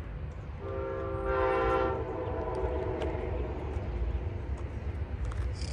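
Approaching train's horn sounding one long blast, several tones at once, starting about half a second in and fading out by about three seconds.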